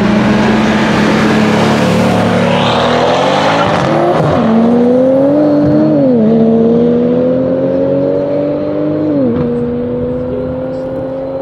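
Brabus 800 C63 S AMG's 4.0-litre twin-turbo V8 held at high revs on the drag-strip start line, then launching at full throttle alongside a BMW M3 and pulling away. Its pitch climbs and drops three times as it shifts up through the gears, and it fades as the cars draw away.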